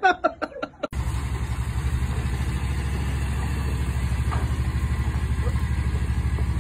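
Small utility vehicle's engine idling steadily with an even low chugging pulse, cutting in suddenly about a second in after a short burst of laughter.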